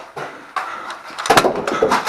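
A few sharp knocks and clacks clustered about a second and a half in, over a faint background of movement.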